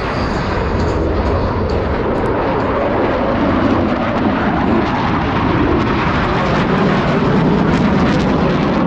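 Boeing F/A-18 Super Hornet fighter jets flying past, a loud, steady rush of jet engine noise that swells slightly through the middle.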